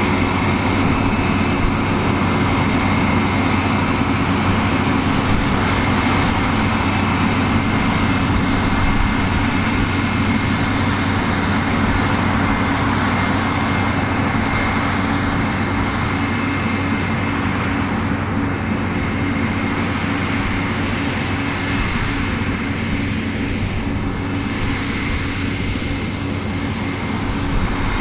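New Holland CR11 combine harvester running steadily under load while harvesting barley: a constant engine drone with a thin, high, steady whine above it, easing slightly quieter in the second half.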